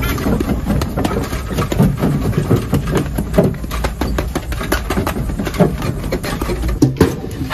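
Electric mobility scooter humming steadily as it drives, mixed with irregular rustling and knocking from plastic-wrapped bedding packages being grabbed and pushed on a store shelf. The low hum stops near the end.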